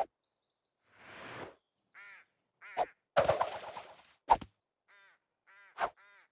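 Cartoon sound effects: a string of short bird calls, a swelling whoosh about a second in, a loud noisy crash in the middle and several sharp knocks.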